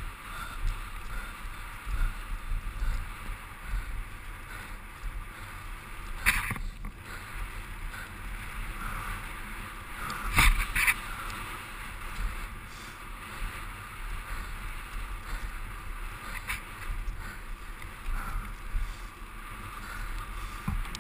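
Mountain bike descending a dirt trail at speed: steady rushing noise of air over the camera mic and tyres rolling on dirt. Sharp rattling knocks from the bike hitting bumps come about 6 s in and again twice about 10 to 11 s in.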